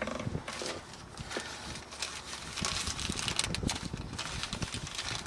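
Irregular small clicks and scrapes of hands handling small parts, with wind buffeting the microphone.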